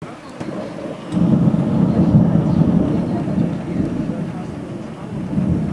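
Thunder: a loud low rumble breaks in about a second in, rolls on and slowly dies away, then swells briefly again near the end.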